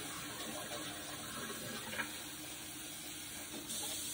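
Kitchen tap running into the sink over a pan of just-boiled eggs to cool them, a steady rush of water. There is a light clink about two seconds in, and the flow gets louder near the end.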